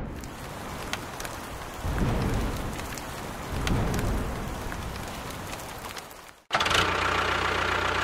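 Rain falling steadily on the ground, with fine drop clicks and two low rumbles swelling up, that breaks off suddenly about six and a half seconds in; an engine sound then takes over.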